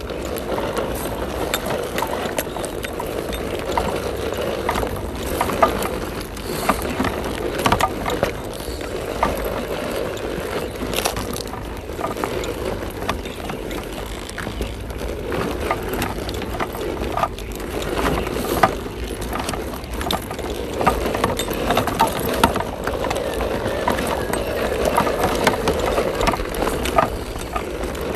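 RC scale crawler truck driving slowly over dry, cracked mud: a steady whir from its motor and gear drivetrain, rising and falling with the throttle, with scattered clicks and crunches as the tyres climb over hard dirt clods.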